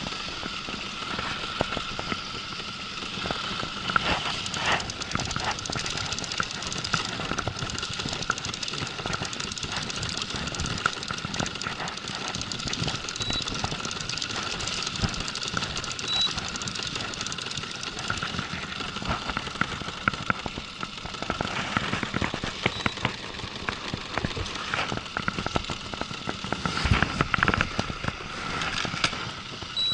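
Fishing gear being wound in fast aboard a small boat: rapid clicking and knocking of a reel and a hand-cranked downrigger over a steady mechanical drone, with the heaviest knocks near the end.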